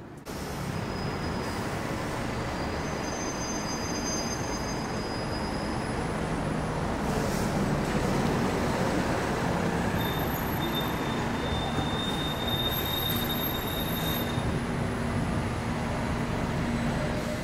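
Steady city street traffic noise from double-decker buses and cars passing close by, loudest around the middle. Thin, high-pitched squeals come and go over it. The sound starts abruptly just after the beginning.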